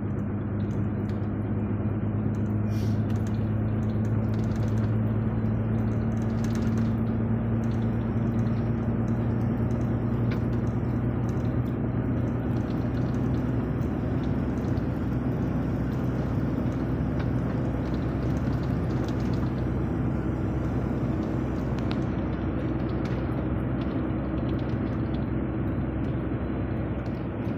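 Car engine and tyre road noise heard from inside the cabin while driving at a steady speed, a constant low hum over an even rush.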